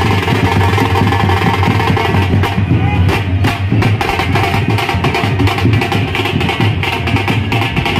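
Loud procession music driven by drumming: a dense run of drum strikes over a steady, heavy low hum.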